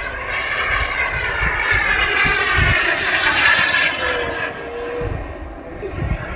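Radio-controlled model airplane passing overhead, its engine and propeller growing loudest about three and a half seconds in, then dropping in pitch and fading as it flies away.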